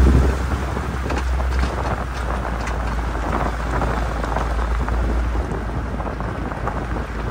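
Vehicle tyres crunching over a loose gravel track, a dense crackle of small stones popping. Under it runs a steady low rumble of the engine and wind against the microphone.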